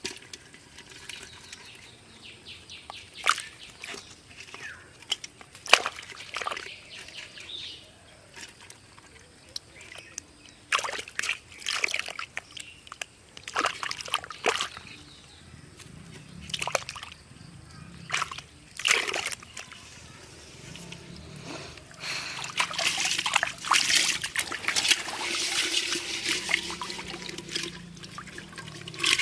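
Muddy water in a dug fishing hole sloshing and splashing in irregular bursts, growing into a steadier spell of splashing in the last several seconds.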